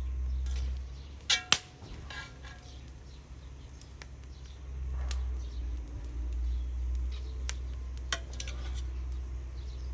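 Metal slotted spoon clinking against a metal pan and a ceramic plate as cooked rice is scooped and served, with two sharp clinks about a second and a half in and scattered lighter taps after. A steady low rumble runs underneath, dropping away for a few seconds after the first clinks.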